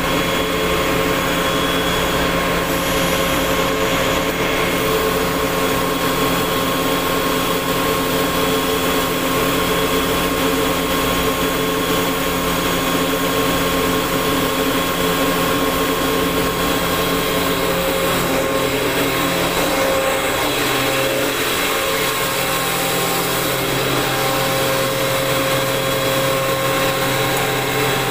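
Industrial air compressor machinery running: a loud, steady drone with several constant hum tones.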